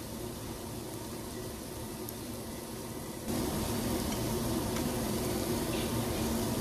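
Pork sizzling on a tabletop barbecue grill, a steady hiss that jumps abruptly louder a little over three seconds in.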